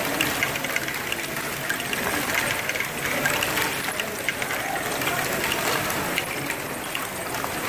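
Continuous clatter of a LEGO Great Ball Contraption loop running: many LEGO modules working at once, with small plastic balls rattling and clicking through the lifts, tracks and hoppers.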